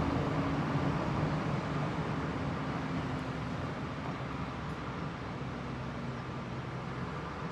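Steady mechanical running noise with a low hum, fading gradually.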